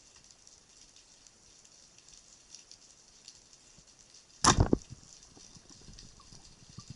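A speargun fires once, about four and a half seconds in: a single sharp, brief shot, by far the loudest thing, over a faint steady crackling background.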